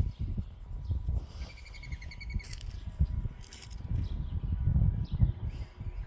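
A bird calling outdoors: a quick run of about eight evenly repeated high chirps about a second and a half in, with fainter calls later. Low, uneven bumping noise on the microphone runs under it and is the loudest sound.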